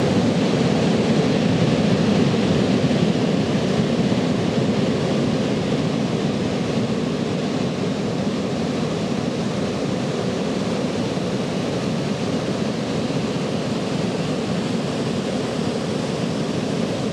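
Ocean surf: waves breaking and washing up a beach, a steady rush of noise.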